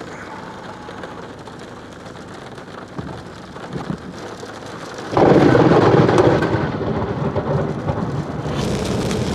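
Rain falling, then about five seconds in a sudden loud clap of close thunder that goes on rumbling afterwards.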